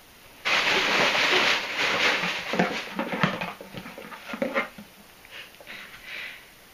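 Hands rustling and crinkling through a box and its packing as it is opened: a dense run of crackles and scrapes that thins out to a few soft rustles near the end.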